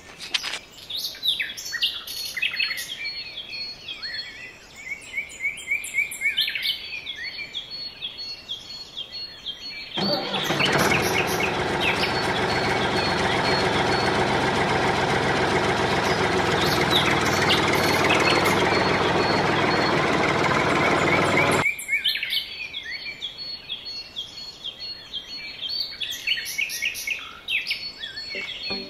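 Birds chirping and twittering. About ten seconds in, a loud steady motor noise starts abruptly, runs for about twelve seconds and cuts off, after which the chirping carries on.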